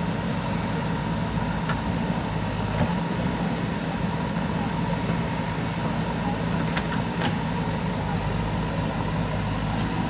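JCB 3DX backhoe loader's diesel engine running steadily while the backhoe arm works, with a few faint knocks.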